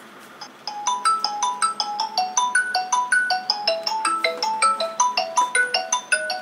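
Smartphone ringtone playing a fast melody of short pitched notes, starting just under a second in: the phone ringing as a Find My Phone alert set off from a Realme Watch 2 Pro smartwatch.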